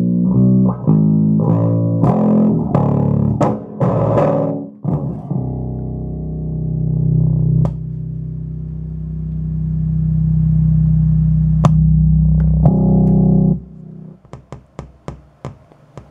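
Electric bass played through a Phil Jones Bass Briefcase combo amp. A run of quick notes gives way to one low note held for several seconds, which swells louder and then stops suddenly, followed by a few light clicks.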